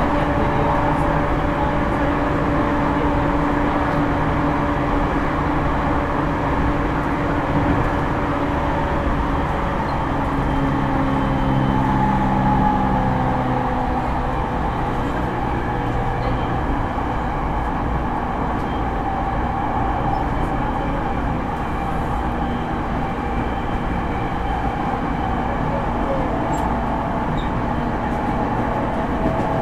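Running sound inside a JR East E231 series 1000-subseries electric train: a steady rumble of wheels on rail with humming tones from the Hitachi IGBT VVVF inverter-driven traction motors, which fade out about halfway through.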